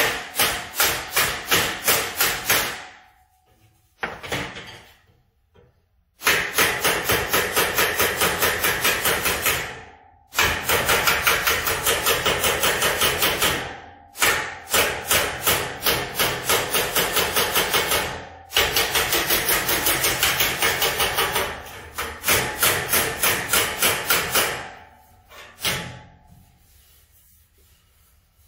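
Ball-peen hammer rapidly striking a sheet-metal car grille backed by a piece of metal, hammering out dents and taking down high spots. About four blows a second in runs of several seconds with short pauses between, the metal ringing briefly after some runs.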